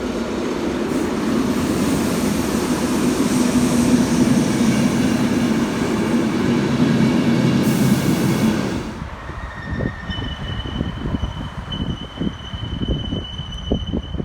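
Train running along the platform tracks with a loud rumble and faint wheel squeal. It drops away suddenly about nine seconds in, leaving a steady high whine and scattered low knocks.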